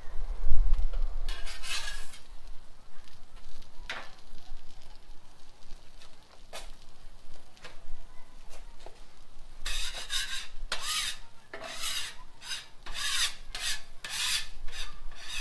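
Spatula scraping across the steel top of a Blackstone flat-top griddle, turning and pressing folded tortillas. It gives a few light clicks and one early scrape, then a run of short rasping strokes near the end. There is a low bump about half a second in.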